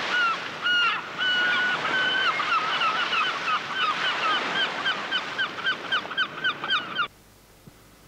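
Geese honking: a few longer held calls, then a quick run of short honks about four a second, over a steady rushing noise. Everything cuts off suddenly about seven seconds in.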